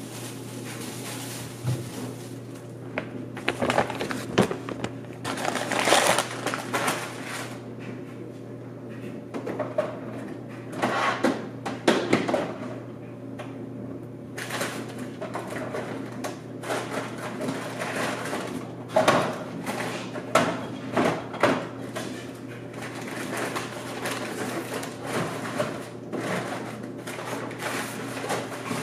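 Groceries being unpacked and put away: irregular rustling, knocks and clatters of bags, produce and cupboard doors, over a steady low hum.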